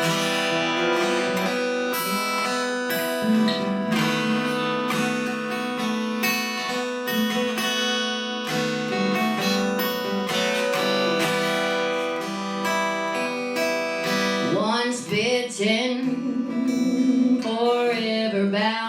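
Acoustic guitar playing a song's introduction, strummed chords ringing steadily; a singing voice comes in about fourteen seconds in.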